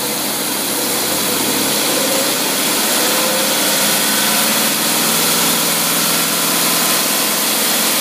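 Marine engine on a test stand running smoothly on a freshly rebuilt Rochester Quadrajet four-barrel carburetor, mixed with the steady hiss of the cooling water pumps that have just been switched on.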